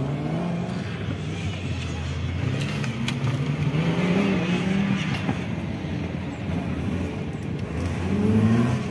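Offroad race car's engine revving up and down as it is driven along a dirt course, the pitch rising and falling several times and getting louder near the end as it comes closer.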